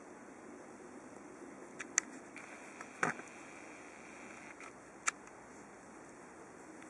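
Steady background hiss with a few short, sharp clicks or taps: two close together about two seconds in, the loudest around three seconds in, and one more near five seconds.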